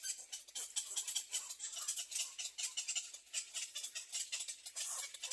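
Baby birds in a nest giving rapid, high-pitched cheeps, mixed with scratchy rustling.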